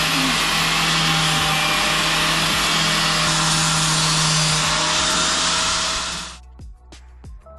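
Angle grinder running against the steel roll-cage tubing at the roof, throwing sparks, grinding the paint off where the joint will be welded. It runs steadily, stops about six seconds in, and a few light knocks follow.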